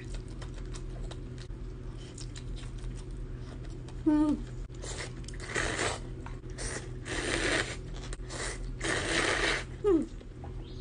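Mouth sounds of eating: faint chewing clicks of a seafood pancake, then five loud slurps of wheat cold noodles (naengmyeon) in spicy broth between about five and nine and a half seconds in. A brief voiced sound comes about four seconds in and another near the end.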